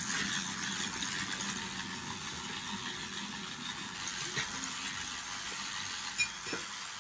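Battery-powered Sonic Scrubber handheld power brush running, its brush head scrubbing cream cleaner over ceramic wall tiles and grout: a steady, loud motor buzz mixed with bristles rasping on the tile.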